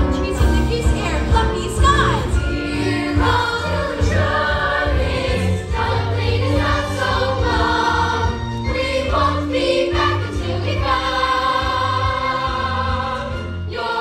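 Young musical-theatre cast singing together as a chorus over instrumental accompaniment with a steady bass line.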